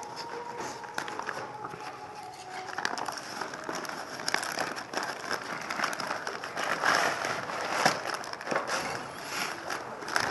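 Parcel packaging being handled and opened by hand, crinkling with many irregular small crackles. It gets busier and louder after about three seconds.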